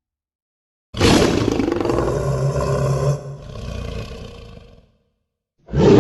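Monster roar sound effect: a loud roar starts abruptly about a second in, drops to a quieter trailing sound after about two seconds and fades out; a second roar begins near the end.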